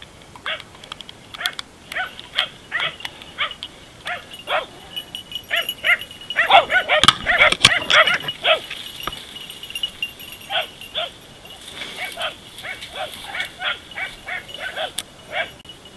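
Dachshunds barking repeatedly at a wounded wild boar held at bay, the barking thickest about halfway through.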